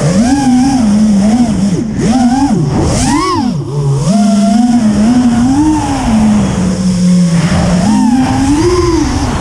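Racing quadcopter's brushless motors (Lumenier MB2206 2450KV) whining, the pitch swinging up and down constantly with the throttle and dipping briefly low about four seconds in.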